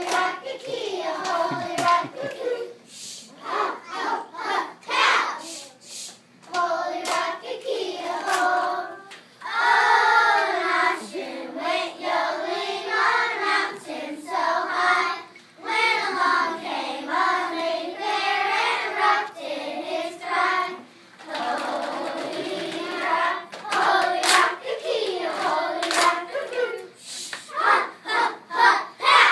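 Children singing together, with sharp hand claps most frequent near the start and end.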